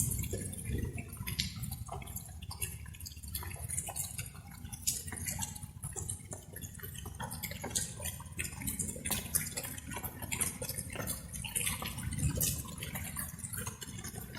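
Light rain: many irregular water drops dripping and plinking, over a steady low rumble.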